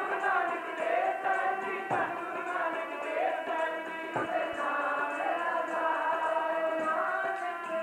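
Sikh devotional kirtan: several women's voices sing a shabad together over the steady held tones of a harmonium, with tabla accompaniment.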